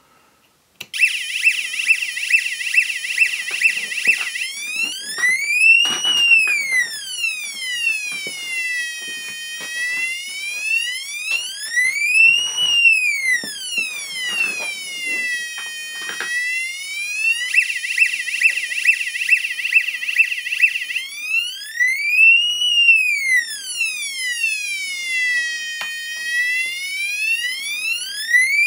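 Small electronic buzzer of a toy police-light kit playing a police siren effect. It opens with a fast pulsing warble, then changes to a slow wail that rises and falls about every six seconds. About two thirds of the way through it switches back to the fast warble for a few seconds, then returns to the wail.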